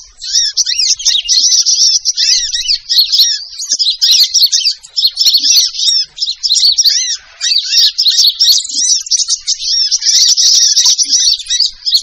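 Matari sunbird calls from a bird-lure (pikat) recording: a dense, continuous run of rapid high-pitched chirps and twitters. The chirping breaks off briefly about seven seconds in.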